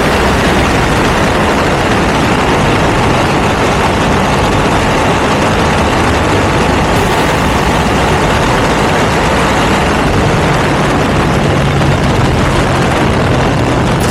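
Ducati V2 twin-cylinder engine running steadily through a Termignoni exhaust: a loud, even drone mixed with a broad rushing noise.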